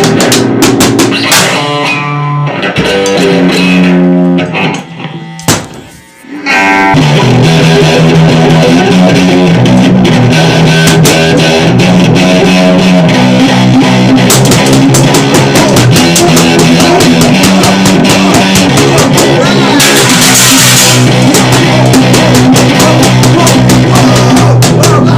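Loud, distorted lo-fi garage noise-rock with electric guitar and drum kit. The music thins to a sparser guitar line and almost drops out about five to six seconds in, then the full band crashes back in and plays on densely.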